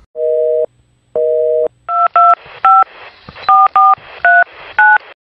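Phone line cutting out with two beeps of a busy/disconnect tone, the sign of a dropped call, then about seven touch-tone keypad beeps as a number is dialled.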